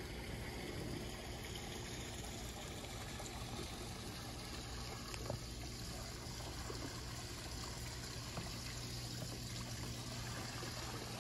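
Water trickling steadily from a small rock waterfall into a backyard pool.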